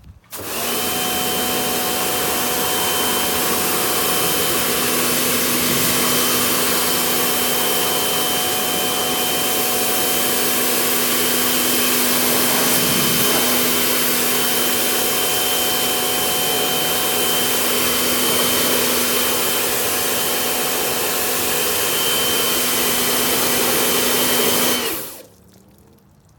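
Karcher K-series electric pressure washer running and spraying: a steady motor-and-pump whine over a loud hiss of water. It starts about half a second in, dips briefly in pitch about halfway, and cuts off shortly before the end.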